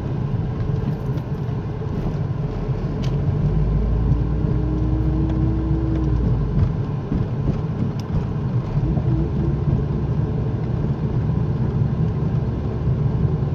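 Car interior road and engine noise as the car drives along: a steady low rumble of tyres and engine heard from inside the cabin.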